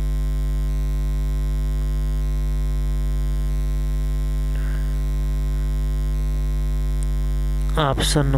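Loud, steady electrical mains hum in the recording: an unchanging low buzz with a stack of overtones. A voice starts just before the end.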